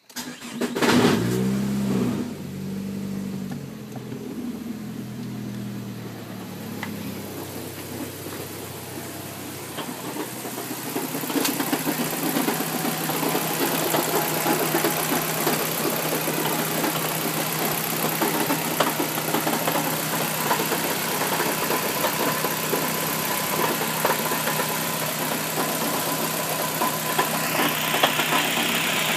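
Turbocharged Nissan four-cylinder engine starting up about half a second in, flaring briefly, then idling. Heard close up in the engine bay from about ten seconds in, it runs louder with a knocking rattle, the sound of an engine its owner calls tacoed (blown).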